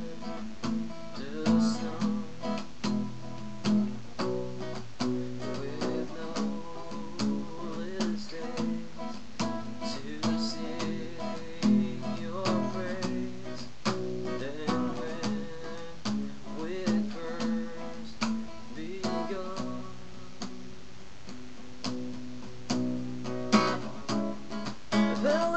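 Acoustic guitar strummed in a steady rhythm through chord changes, an instrumental break in the song, recorded through a webcam microphone.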